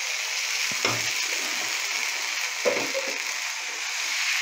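Appam batter sizzling steadily in a hot, oiled appam pan as it is poured in and swirled around. There are a couple of short knocks from the metal pan being handled, about a second in and near three seconds.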